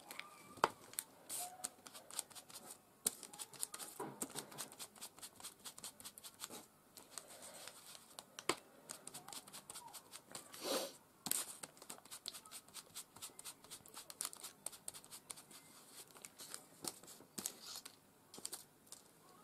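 Small ink applicator dabbing and rubbing on die-cut cardstock roses: a quick, irregular run of light scratchy taps and paper rustles, with one longer, louder scrape about ten seconds in.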